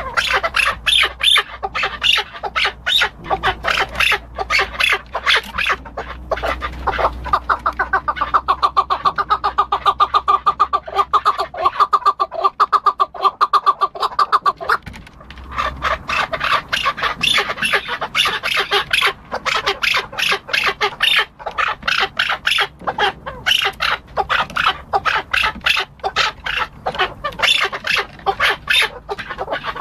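Chukar partridge calling: a long, fast series of repeated chuck notes that runs on with only a brief lull about fifteen seconds in.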